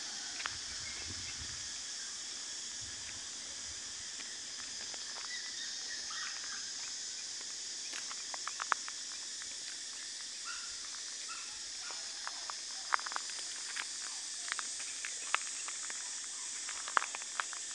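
Rural outdoor ambience: a steady high insect drone, with scattered crunching footsteps on gravel that come more often in the second half.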